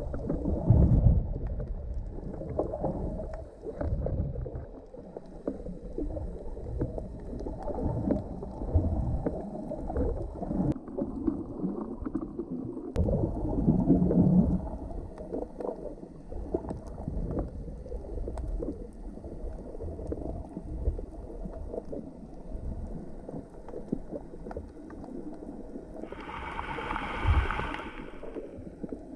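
Underwater noise picked up by a camera held below the surface while snorkeling: muffled, uneven low water movement. Near the end comes a brighter hiss lasting about two seconds.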